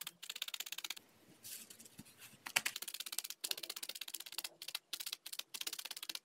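Barbed felting needle stabbing rapidly and evenly through wool into a foam pad: a dense run of light, quick pokes, with a short pause about a second in.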